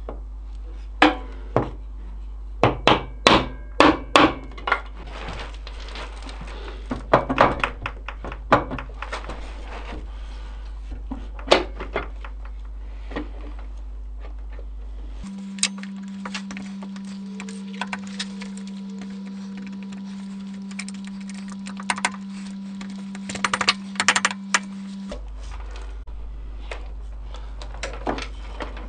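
Hand tools clinking and knocking on metal as the quad's engine and gearbox covers are unbolted: irregular sharp knocks, some in quick runs, over a steady low hum.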